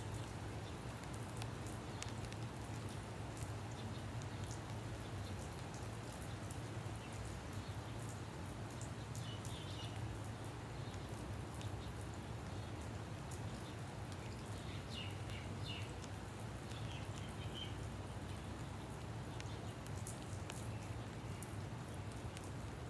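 Light rain falling, with scattered drop ticks over a steady low hum. A few faint high chirps come through in the middle.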